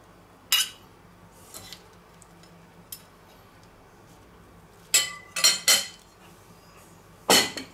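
Metal salad servers clinking against ceramic plates and a salad bowl as salad is served onto a plate: scattered short clinks, a quick run of three about five seconds in and a louder one near the end.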